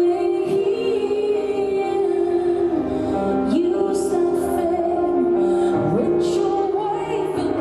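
A woman singing a slow song live over sustained instrumental accompaniment, her voice sliding in pitch in a couple of places.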